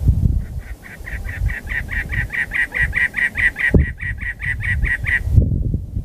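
Cactus wren singing: a long run of harsh, evenly repeated chattering notes, about six a second, starting a moment in and stopping about a second before the end, over a low, uneven rumble.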